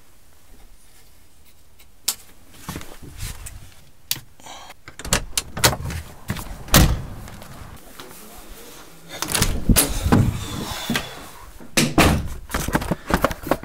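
Irregular knocks, clicks and thumps of things being handled and moved about in a room. The first couple of seconds are quiet, then the knocks come in clusters, loudest around the middle and again in the latter part.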